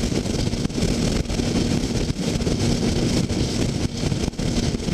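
Sport motorcycle cruising at steady freeway speed: the engine holds a steady hum under loud wind rushing over the helmet-mounted microphone.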